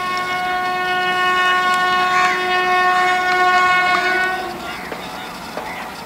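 Horn of a WAP-7 electric locomotive sounding one long steady blast as the train approaches, cutting off about four and a half seconds in.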